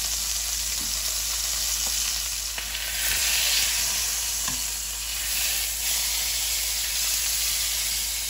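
Beef chuck roast searing in hot oil in an enamelled cast-iron Dutch oven, a steady sizzle that grows louder about three seconds in as the meat is gripped and turned with metal tongs, with a few light clicks of the tongs.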